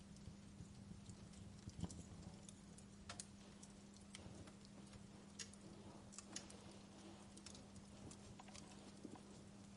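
Wood fire crackling in a fireplace: faint, irregular small pops and snaps, a few sharper than the rest, over a low hiss.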